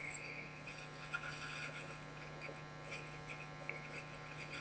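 Faint background room tone: a steady low hum and hiss, with a few faint clicks.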